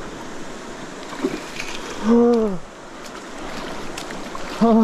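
Shallow stream running over stones, a steady rush of water, with two drawn-out voiced exclamations from a man, about two seconds in and again near the end.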